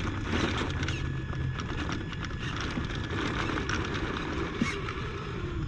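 Traxxas TRX-4 1/10-scale RC crawler clawing its way out of a V between rocks: tyres scrabbling and the chassis scraping on stone, with a run of small clicks and knocks.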